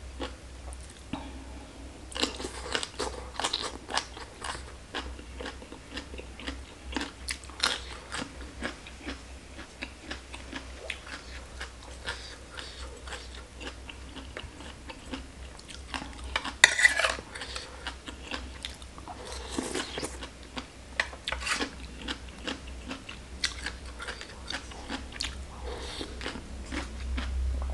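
Close-miked chewing and crunching of shredded green papaya salad, a long run of crisp, wet bites with a louder cluster of crunches about seventeen seconds in.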